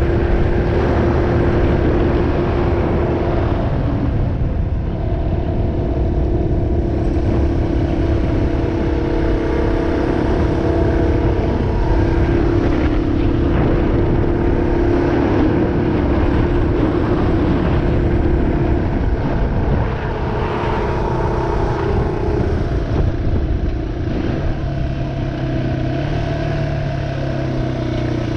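2003 Yamaha XT225's air-cooled single-cylinder four-stroke engine running steadily while riding, its note rising and falling a little, then settling lower about four seconds before the end.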